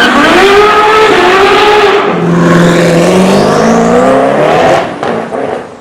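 A supercar's engine revving loudly as the car accelerates, its pitch climbing in steps, then fading away about five seconds in.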